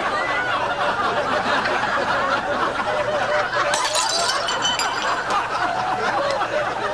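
Crowd of many people laughing and chattering together, with a glassy clink about four seconds in.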